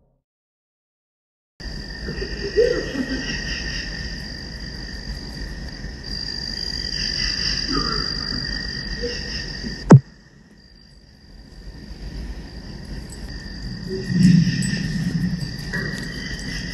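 Security-camera audio of a summer night outdoors: a steady chorus of frogs and insects over a low rumble, after a second and a half of silence. About ten seconds in there is one sharp, loud click, and the chorus drops away for a couple of seconds before returning.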